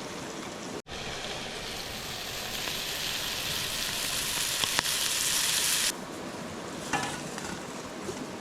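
Small fresh trout frying in a pan, sizzling and building in strength, then cut off abruptly about six seconds in; before and after, a softer steady rush of creek water.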